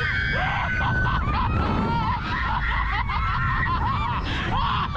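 Riders screaming and squealing on a fairground thrill ride, many short high-pitched shrieks one after another, over a steady low rumble of wind on the microphone.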